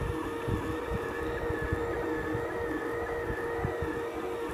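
Kossel delta 3D printer running a print: its stepper motors whine in a wavering pitch as the effector moves, over a steady hum, with scattered low knocks.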